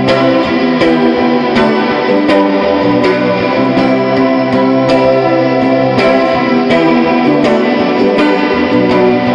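Instrumental passage of an atmospheric indie-electronic song: electric guitar played through effects over held chords, with a steady beat striking about every three-quarters of a second and no vocals.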